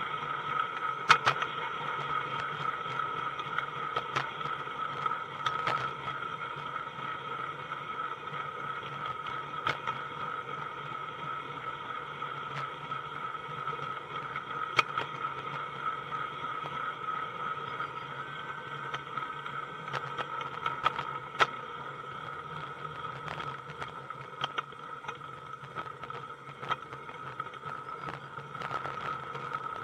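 Running gear of a 16mm-scale garden-railway train heard from the wagon it rides on: a steady whine with a low hum beneath, and sharp clicks at irregular intervals as the small metal wheels cross rail joints and points.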